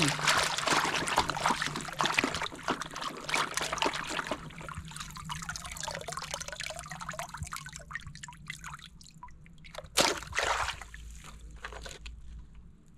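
Water trickling and sloshing, densest for the first few seconds, with a louder splash-like burst about ten seconds in.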